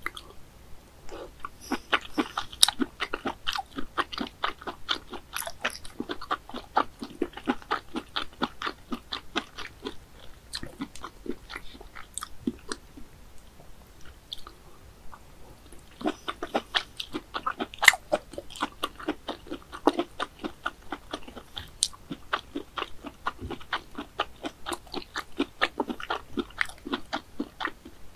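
Close-miked mouth chewing of boiled snail meat: wet, clicking mastication in two long bouts, easing off for a few seconds about halfway through.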